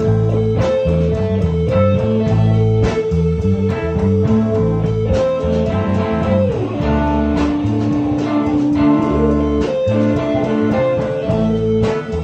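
Blues band playing an instrumental passage: an electric lead guitar holds long notes, bending down about halfway through and back up near the end, over a walking bass line and a steady beat.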